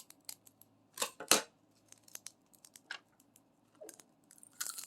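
Light clicks and ticks from handling diamond-painting kitting supplies (drill bags and small plastic containers), with two short, louder rustling or snipping noises about a second in.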